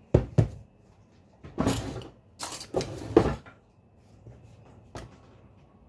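A plastic canister knocked twice onto a countertop, then a second or two of plastic scraping and rattling as it is handled, and one light click near the end.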